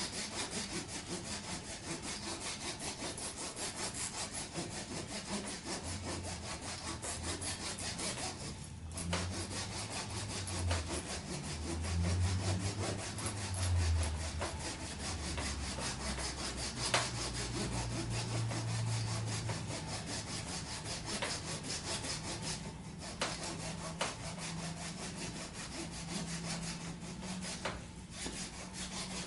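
Hand saw cutting through the dead, very hard wood of a cut American hornbeam trunk in quick, even back-and-forth strokes.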